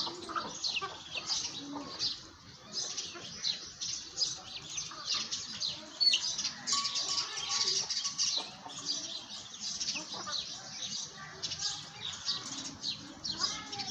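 Many small birds chirping together: a dense, overlapping chatter of short, high chirps that never lets up.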